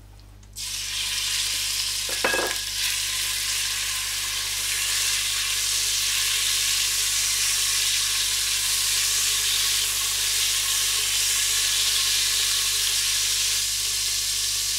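Cubes of beef sizzling as they sear in hot olive oil in a stainless pressure cooker; the hiss starts suddenly about half a second in as the first pieces hit the oil and then runs on steadily as more are added. A brief ringing knock about two seconds in.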